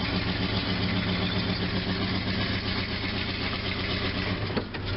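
1974 Dodge pickup's 318 V8 with a two-barrel carburettor idling steadily, heard from inside the cab.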